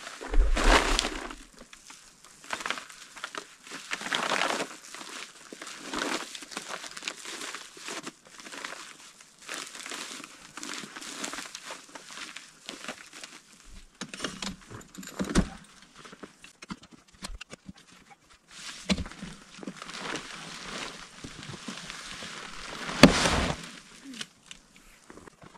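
A heavy-duty mylar tarp crinkling and rustling in irregular handfuls as it is folded up, with one louder knock near the end.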